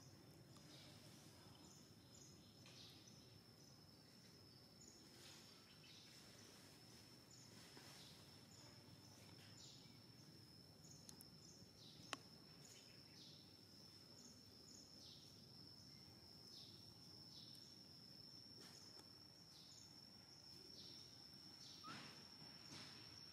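Near silence with faint outdoor ambience: a steady high-pitched insect whine, short falling chirps repeating about once a second, and a single sharp click about halfway through.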